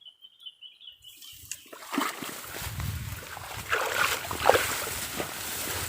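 Water splashing and sloshing, starting about a second in and growing louder, with several sharp splashes.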